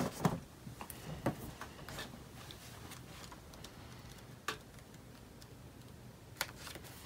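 Faint, scattered ticks and light rustles of paper as the pages of an oracle-card guidebook are leafed through to find a card's entry.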